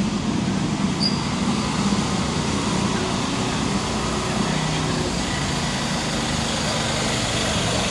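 A small engine running steadily, mixed with street noise.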